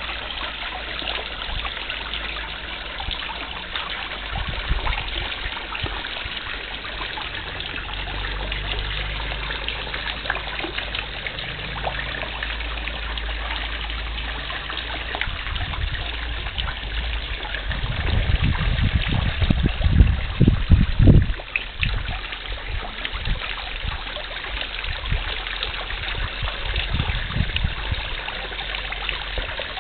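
Small garden pond fountain spraying, its droplets falling onto the pond surface in a steady trickling splash. About two-thirds of the way in, a few seconds of low rumbling rise over it.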